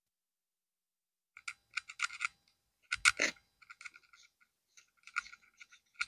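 Knife and gloved hands working a yellowtail fillet: a run of short scratchy clicks and scrapes starting about a second and a half in, with one heavier knock about three seconds in.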